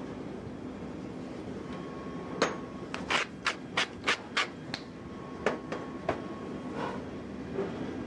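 Pepper mill being twisted over fish fillets, grinding in a run of sharp crunching clicks about three a second, then a few spaced ones, over a steady background hum.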